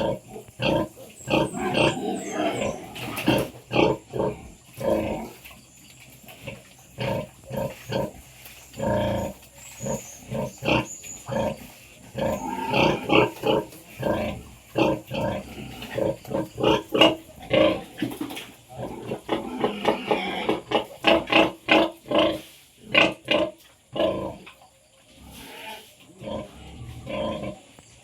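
A sow and her newborn piglets grunting and squealing: many short calls in quick runs with brief lulls between them.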